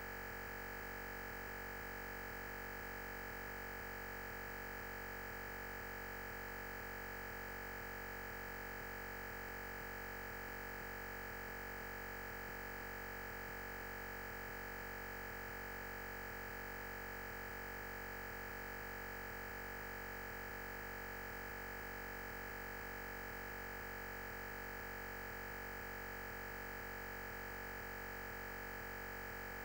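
Steady electronic hiss with a constant high-pitched tone, unchanging throughout; no speech can be heard, though a lecture is under way, so the sound track holds only this noise.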